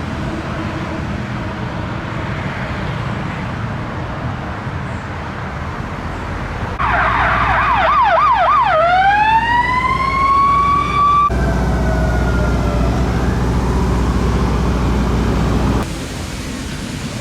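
Street traffic noise, then an emergency vehicle's siren about seven seconds in: a fast warble of about three cycles a second that switches to a long rising wail and levels off, cutting off abruptly a few seconds later.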